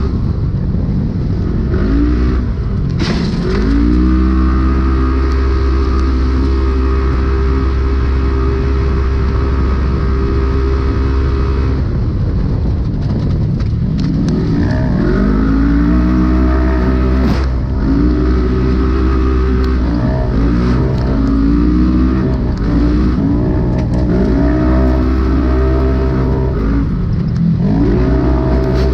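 Polaris RZR UTV engine heard from inside the car at race pace: the revs climb and hold at a steady high pitch for several seconds, drop away about twelve seconds in, then rise and fall again and again with the throttle. A couple of sharp knocks cut through, a few seconds in and again past the middle.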